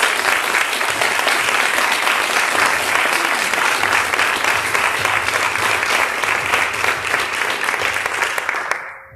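Audience applauding, a sustained round of clapping that dies away near the end.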